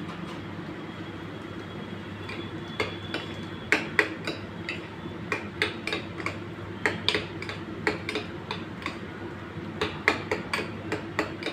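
Metal spoon mixing egg white into a chicken stuffing in a small metal bowl, clinking against the bowl many times at an irregular pace, starting about two seconds in. A steady low hum runs underneath.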